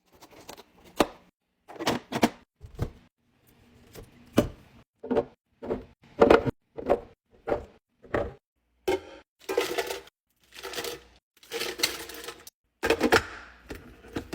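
Containers being set and arranged in a fridge one after another: a quick series of knocks and clicks, then several longer scraping and rustling sounds near the end.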